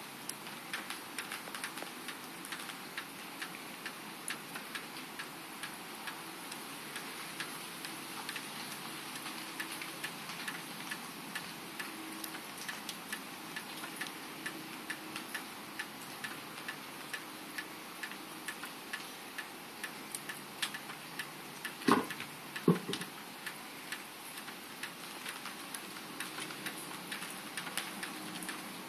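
Light ticks, roughly a couple a second and not quite even, over a steady hiss. Two sharper, louder sounds come about 22 seconds in.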